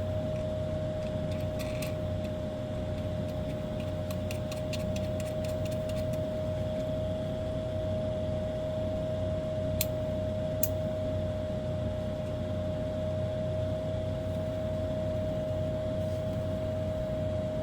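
A steady hum with one constant mid-pitched tone, over which small parts click lightly while being handled: a run of faint ticks in the first few seconds and two sharp clicks about ten seconds in.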